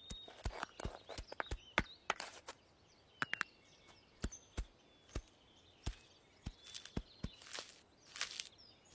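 Quiet sound effects for a clay-animated sheep's hooves: scattered short taps and clicks at an irregular pace, with a quick triple tap a little past three seconds in.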